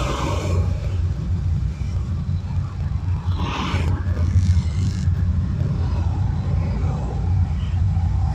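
Road noise of a car driving on a busy road, heard through a dashcam: a steady low rumble, with another vehicle passing in a short hiss about three and a half seconds in.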